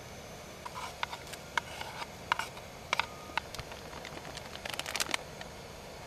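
Ingredients going into a pot of boiling radish broth: a scatter of short clicks, taps and rustles from about one to five seconds in, over a steady hiss.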